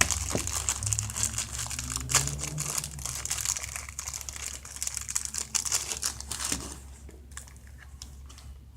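Plastic toy packaging crinkling and crackling as it is handled and torn open, stopping about seven seconds in.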